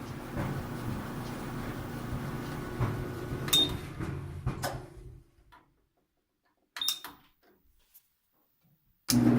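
GE dryer's drive motor and drum running with a steady hum, with sharp clicks about three and a half and four and a half seconds in. The running cuts out about five seconds in; after near silence broken by a single click around seven seconds, it comes back loudly near the end. The motor starts and stops because of a bad motor relay on the control board.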